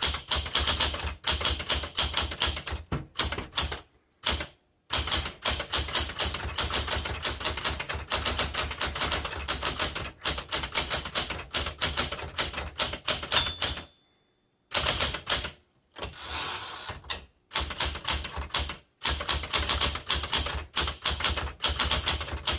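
1977 Smith Corona Classic 12 typewriter being typed on in fast runs of keystrokes, a test run to check whether the machine skips spaces. The typing stops briefly about two-thirds of the way in, and a softer, longer sound follows before the keystrokes resume.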